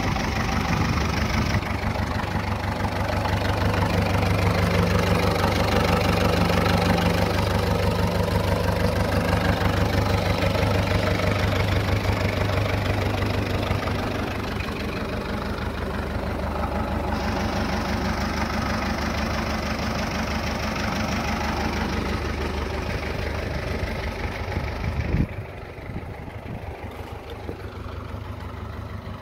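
Massey Ferguson 25 tractor engine idling steadily. About 25 seconds in there is a single thump, and after it the engine sounds fainter.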